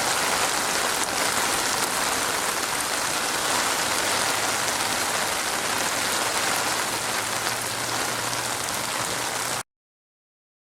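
Steady rain falling on a surface, an even hiss of many drops, which cuts off abruptly into silence near the end.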